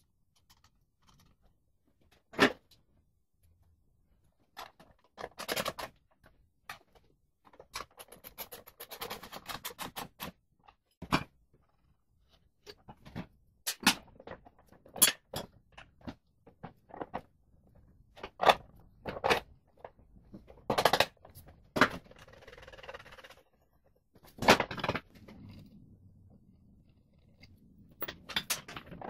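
Irregular metal knocks, clunks and clicks as the front wheel and drum-brake backing plate of a Honda C90 are handled and fitted into the front fork. There are a few sharp loud knocks among them, and a quick rattling run of small ticks about eight seconds in.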